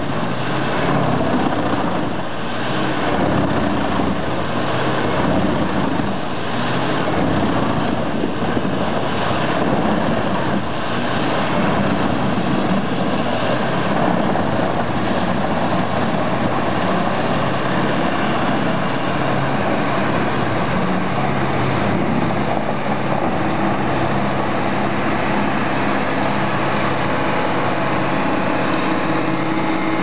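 Jenz truck-mounted wood chipper with 34 cutter blades running under load, chipping logs fed in by a crane grapple. It is a loud, steady machine noise throughout.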